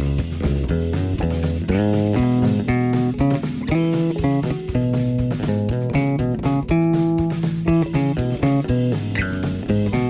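Electric bass guitar played with a quick, busy line of plucked notes and double stops.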